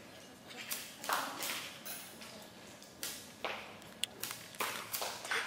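Sport blowguns being fired: several short, sharp puffs and taps spaced through the few seconds, each fading quickly, with one brief click about four seconds in.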